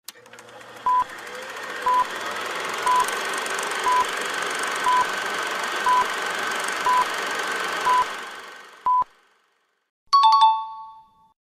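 Quiz countdown timer sound effect: nine short electronic beeps at one pitch, one a second, over a swelling rushing noise that fades out after the last beep. About a second later a two-tone chime rings and dies away as the answer is revealed.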